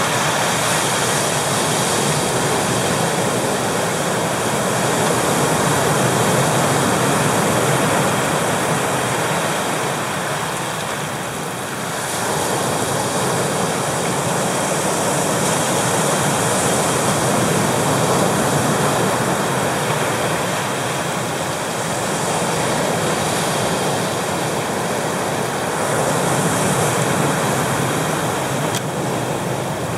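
Pacific Ocean surf breaking and washing over rocks, a loud continuous rush of water that swells and eases with each wave. It dips briefly about eleven seconds in.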